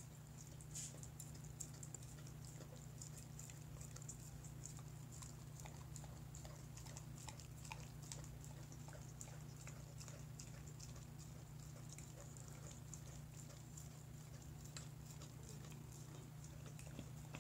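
A dog licking pudding out of a glass mixing bowl: quick, irregular little ticks of its tongue against the glass, over a steady low hum.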